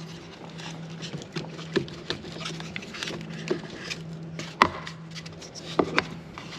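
Light clicks and knocks from a car battery's plastic terminal cover and cable connectors being handled, the sharpest about four and a half seconds in, with two more near the end, over a steady low hum.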